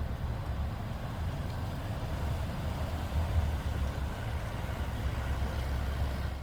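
A low, steady engine rumble.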